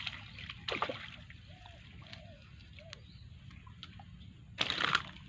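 Hooked snakehead splashing at the water's surface, with one loud splash near the end, while short chirping animal calls repeat in the background.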